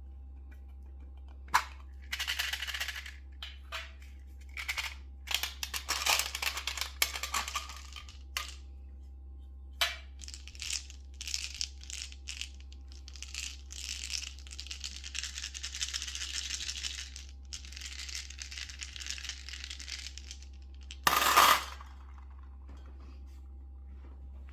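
M&M's candies dropping and clattering into a metal bowl: single ticks and runs of dense rattling as handfuls pour in, with the loudest clatter near the end.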